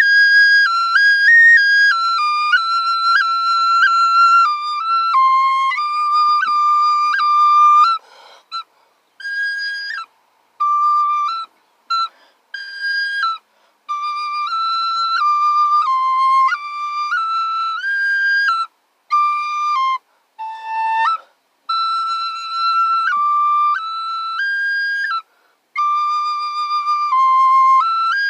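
A flute played solo: a slow melody of held high notes stepping up and down, broken by short gaps and breath sounds around the middle.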